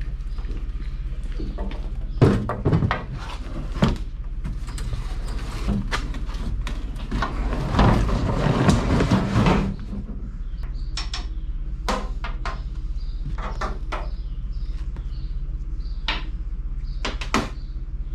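Heavy scrap metal being handled and shifted: scattered knocks and clanks, with a longer scraping rattle about eight to nine and a half seconds in, over a steady low hum.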